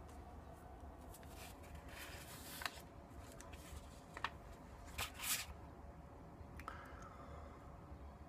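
Faint rustling and a few soft clicks from small objects being handled close to the microphone, over a faint steady hum.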